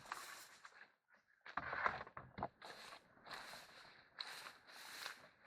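Irregular splashing and scraping of someone wading in shallow water beside a canoe, in a string of short uneven bursts.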